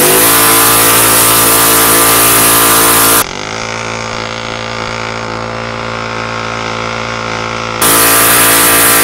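Coleman CT100U mini bike's Predator 212 single-cylinder engine held at high, steady revs while its rear tyre spins on concrete in a burnout. For about four seconds in the middle the sound turns quieter and duller, picked up by a second microphone down by the wheel.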